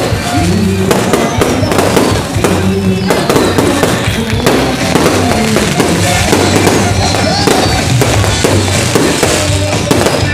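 Aerial fireworks bursting and crackling, many bangs in quick succession, with music playing loudly underneath.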